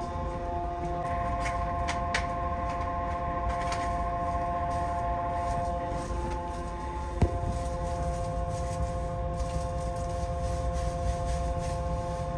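Yokohama Municipal Subway 3000A-type train heard from inside the car while running: a low rumble from the wheels and track under a steady whine of several fixed tones from its Mitsubishi GTO-VVVF traction equipment. A single sharp knock comes about seven seconds in.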